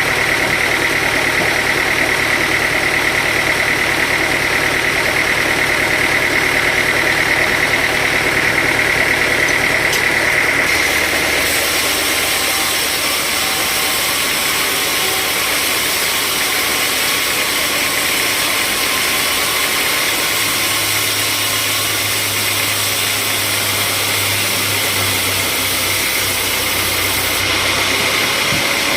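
Sawmill machinery running steadily and loudly with a high whine. About eleven seconds in, a bright hiss joins it, and it stops about a second before the end.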